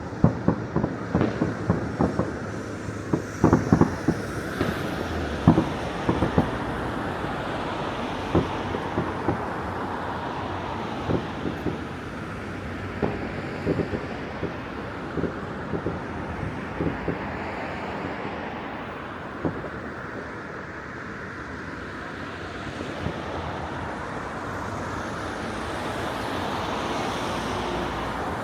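Distant fireworks going off across a city: many sharp bangs and pops, thick in the first several seconds and then scattered, over a steady rush of traffic and wind noise.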